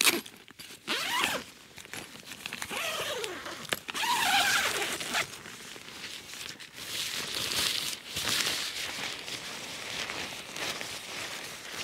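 Zip on a polyester tent flysheet door being pulled open in a couple of strokes, then the fabric rustling and crinkling as the door panel is handled and rolled back.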